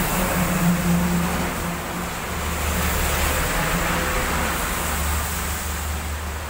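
A heavy cargo truck and then a minivan drive past on a wet road, engines rumbling low under the hiss of tyres through water on the asphalt.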